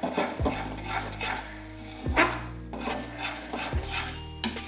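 A spoon stirring masala in a pan, clinking and scraping against the metal, over background music with a falling bass note that repeats about every second and a half.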